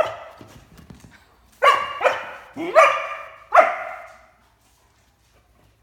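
A Great Dane barking: one sharp bark at the start, then four more barks in quick succession from about a second and a half to four seconds in.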